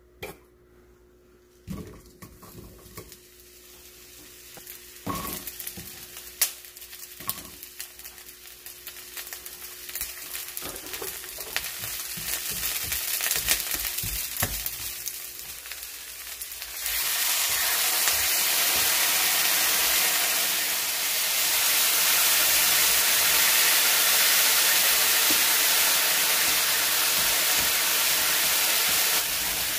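Food sizzling in a hot frying pan, with a few knocks of a utensil early on over a quieter, building sizzle. About 17 seconds in, the sizzling jumps abruptly louder and stays loud and steady.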